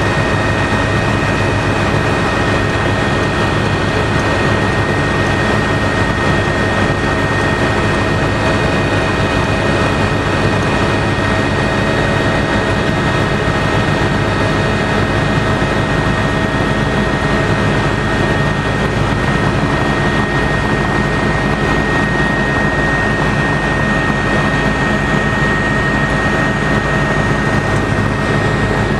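Helicopter engine and rotor running steadily in flight, heard from inside the cabin: a dense, even drone with a steady high whine over it.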